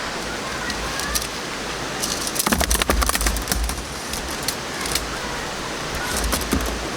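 Valley stream rushing steadily. A cluster of sharp clicks and rattles comes about two and a half seconds in, with a few lighter clicks later.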